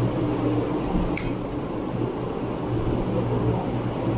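Steady low hum of an electric fan running, with soft squishing from fingers mixing rice and curry on the plates and a short click about a second in.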